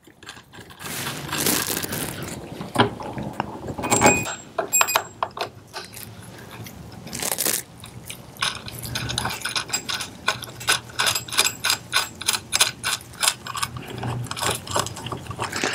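Steel parts of a three-arm crankcase puller clinking and knocking as its long bolts and nuts are fitted and threaded by hand. The first few seconds hold scattered knocks and short ringing clinks. From about halfway on comes a steady run of light, quick clicks, about three a second, as the threads are run in.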